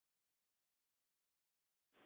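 Complete digital silence: the sound track is muted, with not even room tone.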